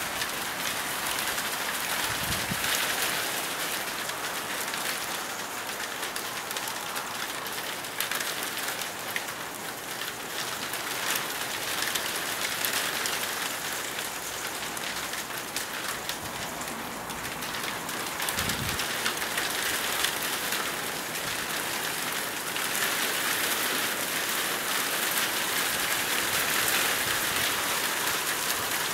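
Steady rain falling during a spring storm, an even hiss that holds throughout, with two brief low thumps, one about two seconds in and one about eighteen seconds in.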